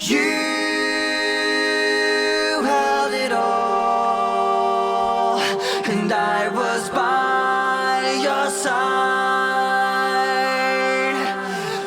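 Background music with no lyrics: held chords that change every few seconds.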